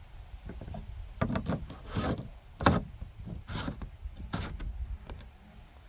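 A handful of short, irregular rubbing and scraping strokes, about five over a few seconds, as of hands working around the newly fitted deck plate on the fiberglass deck.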